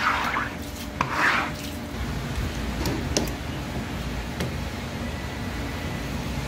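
Gloved hand sweeping wash water across a wet cutting board: two short swishes about a second apart. Then a steady low rumble with a few faint light knocks.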